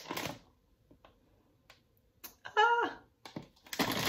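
A woman's short exclamation, "Ah!", with a falling pitch about two and a half seconds in. Before it, at the very start, the crinkle of a plastic candy wrapper dies away, and a short burst of noise comes near the end.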